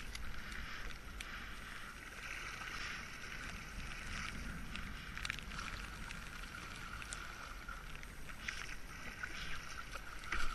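Water lapping and splashing against a kayak hull, with scattered small splashes from the paddle and a low wind rumble on the microphone.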